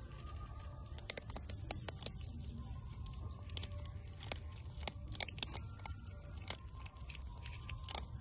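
Two kittens crunching dry cat kibble from a plate, with many quick, irregular crunches as they chew.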